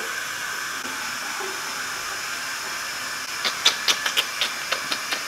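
A steady hiss from a kitchen appliance, with a run of light sharp clicks starting about three and a half seconds in.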